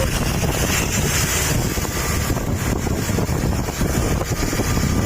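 Wind buffeting the microphone: a loud, rough, continuous rushing with a ragged low rumble.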